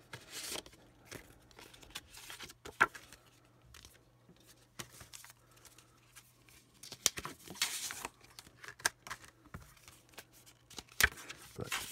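Cardboard toy boxes and paper packaging being handled and opened: scattered rustling and crinkling with short tearing sounds, the longest about seven seconds in.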